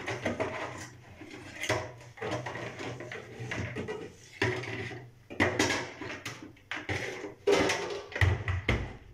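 Spatula scraping and knocking inside a plastic food-chopper jar as finely ground biscuit crumbs are emptied out, in about eight short rough scrapes. A heavier knock comes near the end.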